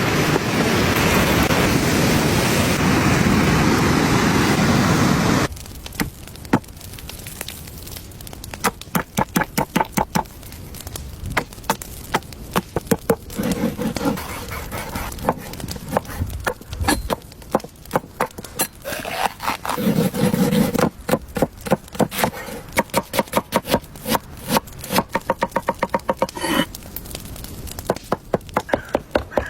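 Loud wind-like rushing noise that cuts off abruptly about five seconds in, followed by runs of quick, sharp knocks and scrapes, several strokes a second, with short pauses between the runs.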